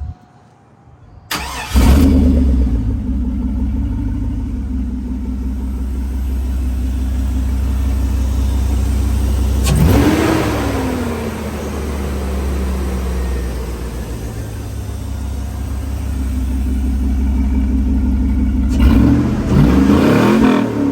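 Chevrolet Silverado engine, freshly fitted with a Volant cold air intake, starting about a second and a half in and then idling. It is revved once around the middle, its pitch rising quickly and falling back slowly, and blipped a couple of times near the end.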